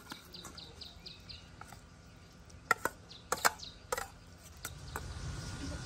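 Small birds chirping in a quick run of short, high, falling notes. Then a spoon clinks sharply about six times against a stainless steel bowl as noodle salad is scraped out onto a plate.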